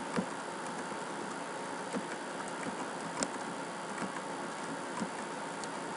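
Scattered faint clicks of computer keys as numbers are typed into a spreadsheet, over a steady hiss.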